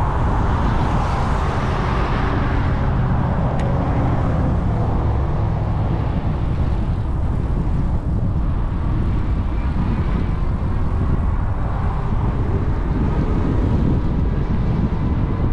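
E-bike ride over a rough, overgrown trail: steady wind buffeting on the bike-mounted camera's microphone and rumbling tyre noise, with one sharp tick about three and a half seconds in and a faint steady whine later on.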